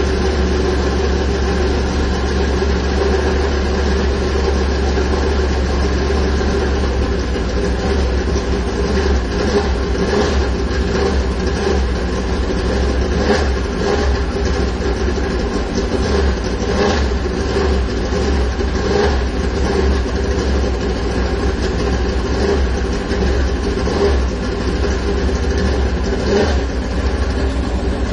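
Ford Mustang's engine running with a steady deep rumble, with a few brief sharper blips scattered through.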